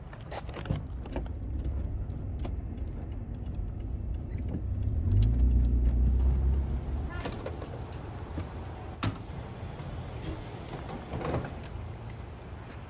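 Engine and road noise of a Toyota Tacoma pickup heard from inside the cab while driving, loudest about five to seven seconds in. Scattered short clicks and knocks come and go around it.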